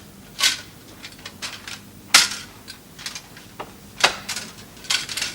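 Irregular sharp clicks and knocks, about eight in all, the loudest about two seconds in.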